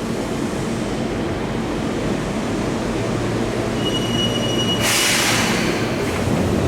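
Seibu Shinjuku Line electric commuter train rumbling at the platform. A thin, high squeal sounds for about a second near four seconds in, then a loud hiss of compressed air bursts out about five seconds in, typical of a train coming to a stop.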